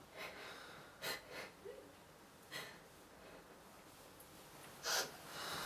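Actors playing zombies making quiet breathy noises as they feed on a body: about five short, sharp breaths or sniffs, the loudest near the end.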